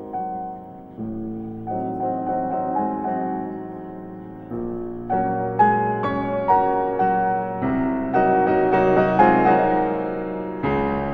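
Background piano music: slow chords and single notes, each struck and left to fade, growing fuller and louder about halfway through.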